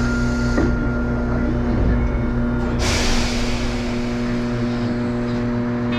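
Streetcar standing at a stop, heard from inside the car: a steady electrical hum with a low throb, then a sudden hiss of released air about three seconds in, after which the throb stops.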